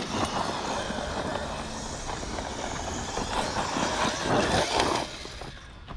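Electric RC off-road car running over loose dirt: a steady rush of motor and tyre noise that is loudest just before it fades, about five seconds in.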